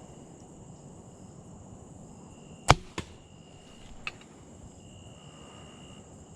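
A bow shot: one sharp, loud crack of the bow firing, a smaller crack about a third of a second later, and a faint click about a second after that. Steady insect buzzing goes on behind it.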